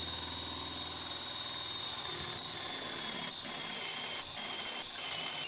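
Cordless drill running steadily as it bores a 28 mm Forstner bit into plywood, with a high motor whine that sinks slightly in pitch under load toward the end.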